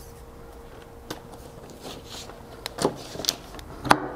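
A few sharp metallic clicks and clinks of a wrench and a threaded steel hose fitting as a hydraulic hose is screwed into the port of a hydraulic pump. The loudest two come near the end, over a faint steady hum.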